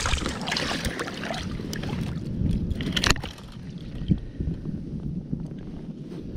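Water splashing and sloshing as a steelhead thrashes inside a rubber-mesh landing net held in the river, with sharper splashes at the start and about three seconds in.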